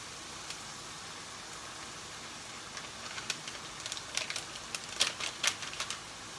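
Ground beef frying in a pan with steady sizzling, and a run of sharp clicks and taps from about three seconds in, loudest around five seconds.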